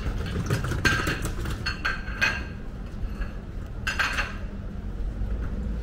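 Several light clinks of dishes and cutlery over a steady low rumble.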